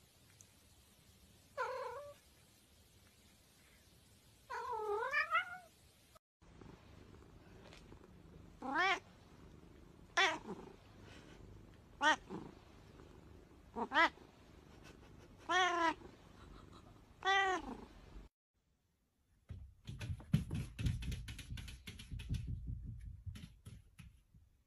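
Domestic cats meowing: a couple of meows, then a run of six meows about every second and a half to two seconds, each rising and then falling in pitch. Near the end comes a few seconds of rapid clicking and rustling.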